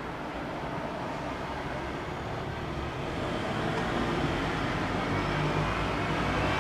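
Road traffic: a steady hum of passing vehicles, with one vehicle's engine growing louder through the second half as it draws closer.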